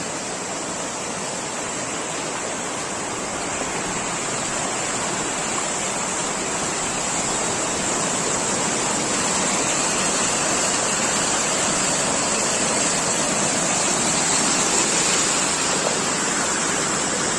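Continuous rush of a large body of moving water, a steady roar that grows slightly louder over the stretch.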